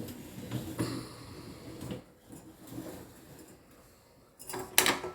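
Dishes and the dishwasher's rack being handled: light knocks and rattles, then one sharp clack near the end.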